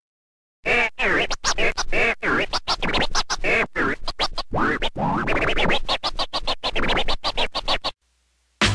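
Music soundtrack of turntable-style scratching: a sample dragged back and forth in rapid rising and falling pitch sweeps, chopped by quick cuts. It starts about half a second in, stops suddenly near the end, and a beat with heavy bass comes in just before the end.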